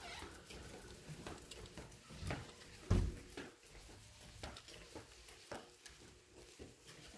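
Irregular footsteps and rustling handling noise, with one heavy thump about three seconds in.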